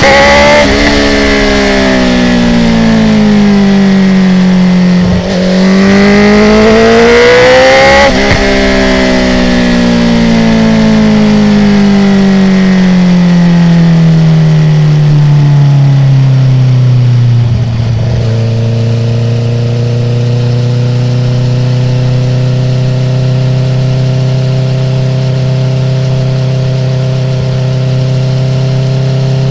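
Honda CB650R inline-four through an Akrapovic full exhaust with the dB killer removed, heard from the bike. It revs up twice, and each time the revs wind down slowly as the throttle closes. For the last ten seconds or so it holds a steady engine speed.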